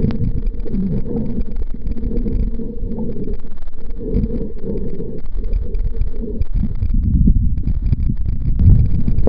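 Muffled, low, irregular rumble and sloshing of water picked up by a camera held underwater in a lake.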